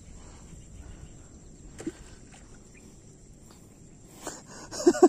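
Quiet riverside outdoor ambience with a faint, steady high-pitched hum and a single sharp click about two seconds in; a man's voice starts up near the end.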